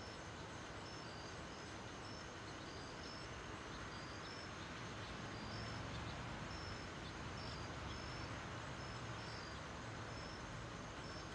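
Distant jet airliner (Boeing 757) passing high overhead: a faint, steady low rumble that swells a little in the middle. Short high insect chirps repeat about twice a second over it.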